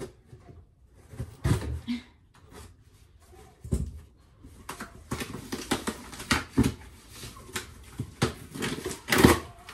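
Cardboard box being opened by hand: irregular rustling, scraping and knocks of cardboard as the tape and flaps are worked loose. The sounds are sparse at first, get busier in the second half and are loudest near the end.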